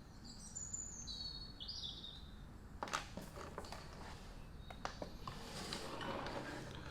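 A bird chirps a few short high calls in the first two seconds. Scattered light clicks and a soft rustle follow, from items being handled.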